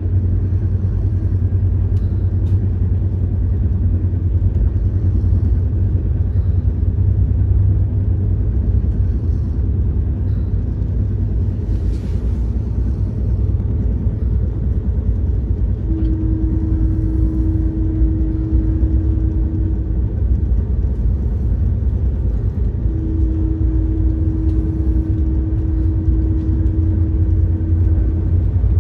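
Passenger train running at speed, heard from a coach window: a steady low rumble of wheels on the rails. A steady mid-pitched hum joins it twice, for about four seconds past the middle and for about five seconds near the end.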